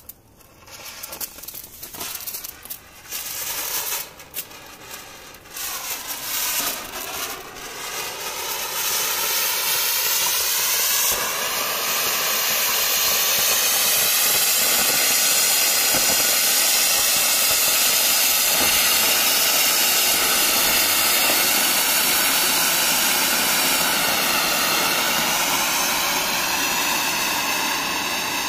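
Clay flower-pot fountain firework (matka anar) burning: it sputters in uneven spurts for the first several seconds, then settles into a loud, steady hiss of sparks.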